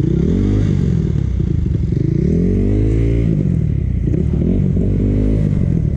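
Dirt bike engine running under throttle, its pitch rising about four times as it revs up through the gears.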